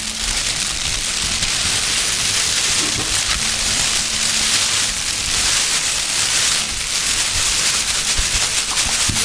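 Live foley imitation of a fire burning: a steady hissing rush with dense fine crackling throughout.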